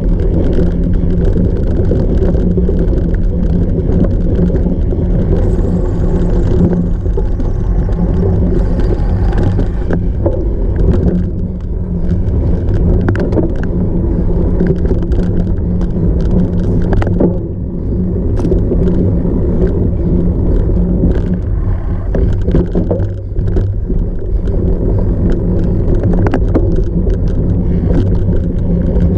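Cyclocross bike ridden off-road: steady rumble and wind buffeting on the microphone, broken by frequent knocks and rattles as the bike runs over rough ground.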